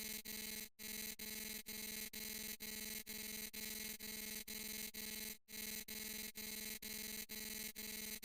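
A harsh, buzzing electronic sound effect repeating about two and a half times a second, with two brief breaks, one near the start and one a little past the middle.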